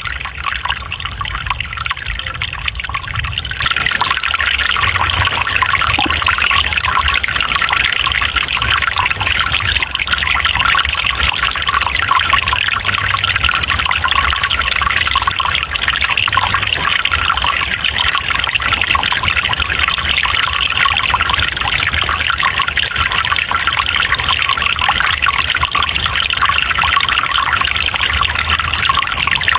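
Water in a forest stream trickling steadily, getting louder about three and a half seconds in and then holding even.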